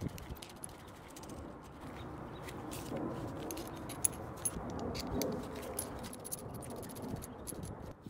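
Small metal parts clicking and clinking as a brass plumbing fitting is screwed by hand onto a steel bolt through a copper cable lug, over a steady handling rustle that grows louder in the middle.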